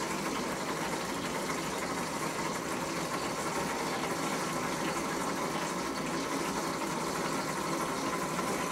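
Nitinol memory-wire spring heat engine running in its tank of iced and hot water, its spinning spring and pulleys spraying and splashing water about in a steady patter.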